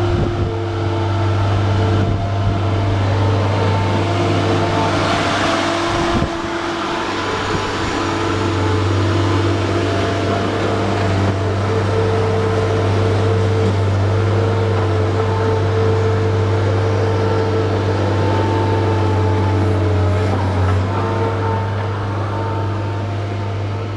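Skid loader's engine running steadily. A short rush of noise comes about five seconds in, ending with a knock about a second later.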